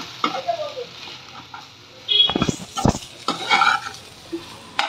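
Spatula scraping and stirring drumstick-leaf stir-fry around a frying pan, in irregular strokes with clatters of the spatula against the pan. The strokes are busiest a little past the middle, with one sharp knock about three seconds in.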